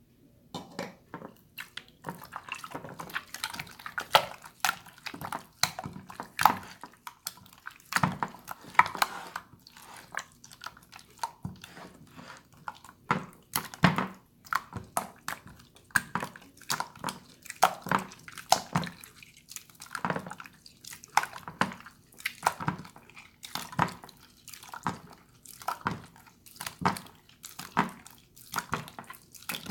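Water slime being squished and patted by hand: repeated short, wet squelching and splashing clicks, irregular, about one or two a second.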